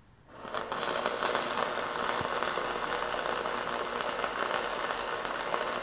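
MIG welding arc crackling and hissing steadily while a wastegate pipe and V-band flange are welded onto an exhaust up pipe. The arc strikes about half a second in and keeps running.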